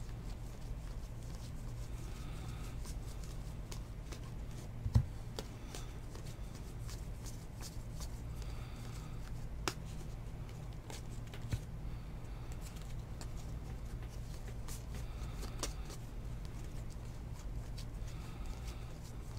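Trading cards being slid and flipped one at a time through the hands: soft rubbing and light ticking of card stock over a steady low hum. A single low thump about five seconds in is the loudest sound.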